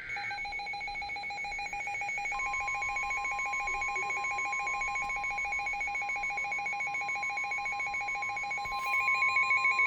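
A weather radio receiver's alert alarm trills rapidly on a high and a low tone. From about two seconds in, the steady NOAA Weather Radio warning alarm tone joins it: a single held pitch of about 1 kHz announcing a new warning broadcast. The trill gets louder near the end.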